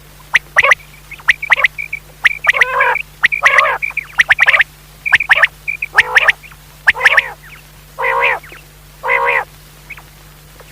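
Common quail calling: quick, sharp high-pitched notes mixed with short, harsh rasping calls, repeated over and over throughout.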